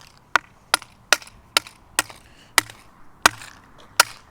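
Repeated sharp blows smashing a smoke detector: about nine hits at roughly two a second, the gaps widening a little toward the end.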